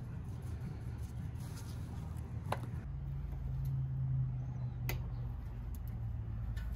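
Lid of a Char-Griller Akorn kamado grill lifted open by its handle: a sharp click about five seconds in, over a steady low rumble. A similar click comes about two and a half seconds in.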